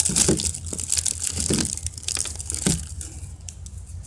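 Plastic wrapping crinkling as gloved hands pull it open around a stack of compressed wood smoker pucks; the crinkling dies down about three seconds in.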